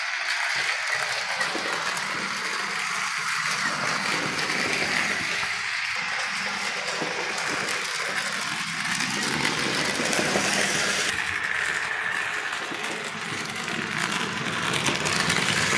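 Hornby 00-gauge BR Class 7MT locomotive, driven by a motor in its tender, running along the track: a steady whirring rattle of motor and wheels on the rails.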